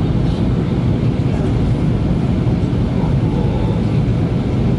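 Steady cabin noise of a Boeing 737NG in flight on descent: the even rush of airflow and the CFM56-7B engines, heaviest in the low end, with a faint steady hum running through it.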